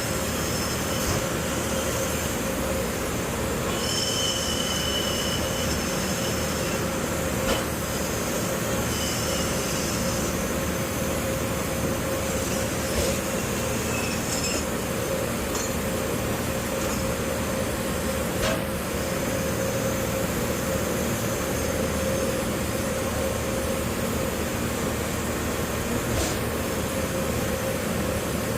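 Steady machine-like noise at an even level, carrying a faint steady tone, with a few sharp clicks scattered through it.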